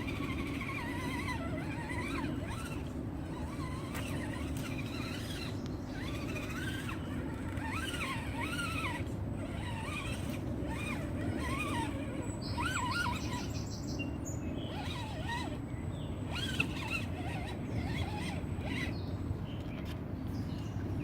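RC crawler driving, its electric motor and gears giving short whines that rise and fall in pitch over a steady low rumble.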